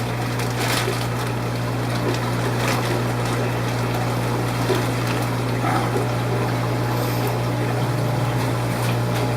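Steady rush of running, trickling water over a constant low hum from a water pump.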